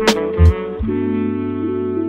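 Lo-fi hip-hop background music: a drum beat with a snare hit and a kick in the first second, then held chords over a low bass note.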